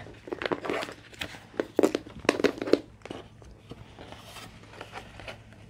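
Adhesive tape and a cardboard sheet being handled: a quick series of crinkles and taps for about three seconds, then quieter, sparser rustling.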